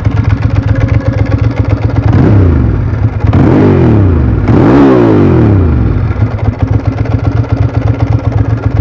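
1999 Ducati ST4's 916 Desmo V-twin idling with a pulsing beat through an aftermarket Staintune exhaust, revved three times in quick succession about two seconds in, each rev rising and falling, then settling back to idle.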